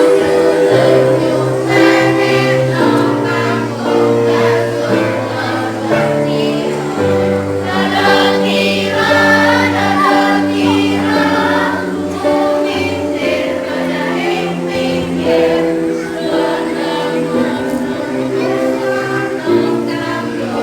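Children's choir singing a song in unison, with held notes over steady accompaniment.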